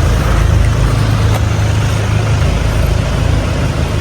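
Car engine and road noise: a steady low rumble.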